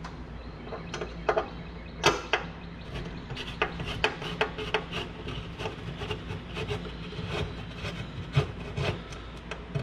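Hex key (Allen wrench) turning a stainless screw out of a metal access panel: a run of short clicks and scrapes as the key bites and is turned by hand, densest in the middle.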